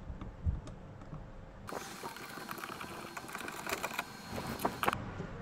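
Small clicks and rattles of plastic parts and wiring being handled at a car door's window regulator motor and its connector, thickest and most continuous from about two seconds in until near the end.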